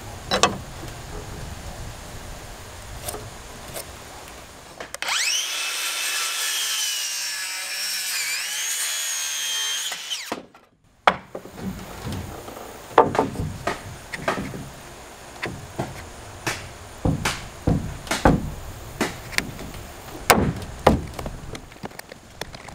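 Cordless circular saw spinning up and cutting through a 2x4 for about five seconds, its whine dipping briefly under load partway through. Afterwards comes a run of sharp knocks and clicks as the lumber is handled and clamped.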